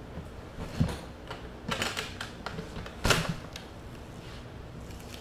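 Grow cabinet door being worked loose and swung open: a thump about a second in, a run of clicks and rattles, then a sharp knock just after three seconds, the loudest sound.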